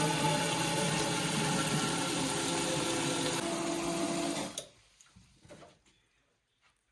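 A small electric motor running steadily, then switched off abruptly about four and a half seconds in, followed by a few faint clicks.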